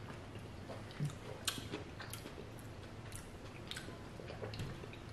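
Faint, close-up mouth sounds of eating and drinking: scattered small clicks and smacks of chewing, with a drink sipped through a straw, over a steady low hum.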